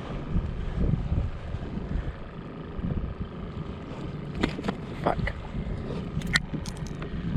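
Wind rumbling on the microphone, with a cluster of sharp knocks and clicks in the second half as a freshly caught trout is handled on a kayak, the sharpest knock just before the end.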